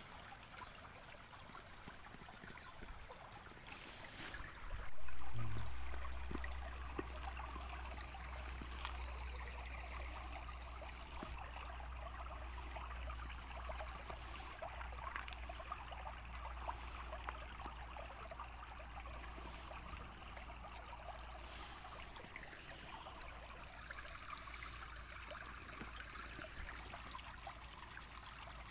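Shallow stream water trickling and lapping over stones, stirred by a hand and a longfin eel moving in the shallows. A low thump hits the phone microphone about five seconds in, and a steady low rumble follows.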